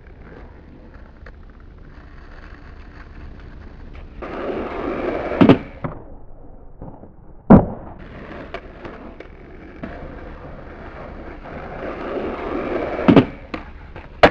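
Skateboard wheels rolling on asphalt, twice building up louder toward a concrete kicker, each run ending in a sharp clack of the board. About halfway there is one loud smack of the board hitting the ground, and another sharp board impact comes right at the end as the trick comes down.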